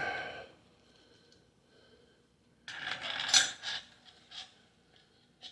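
Metal parts of a Tokarev TAR-12 shotgun's gas system clinking and scraping as the spring is fitted back on: a sharp metallic knock with a brief ring at the start, a cluster of scraping clinks in the middle, then a couple of light clicks.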